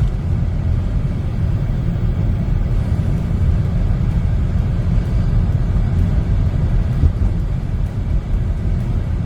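A car driving along a highway: steady low rumble of road and engine noise.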